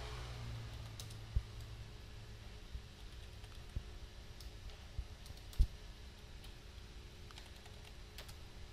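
Sparse keystrokes on a computer keyboard: a few scattered clicks, the loudest just past halfway, over a low steady hum.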